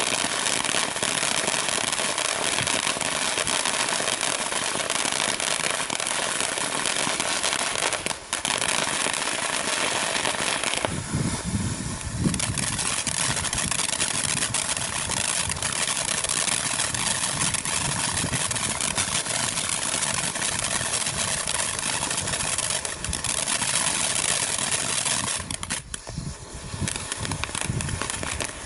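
Top Gun TG4226 Soda Fountain, a 500-gram firework fountain, burning: a steady hiss of spraying sparks with dense crackling throughout. The sound changes a few times as the effects change, with a brief dip about eight seconds in.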